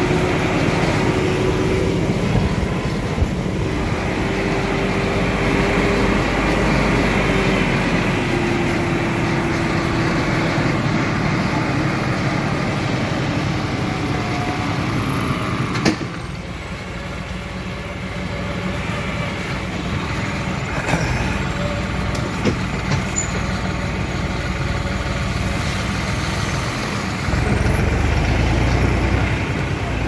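New Holland T3.75 tractor's 75 hp common-rail diesel engine running steadily, heard from the driver's seat as it comes down a steep, muddy track with a loaded trailer, without strain. Near the end, a second tractor's engine rumbles louder as it passes close by.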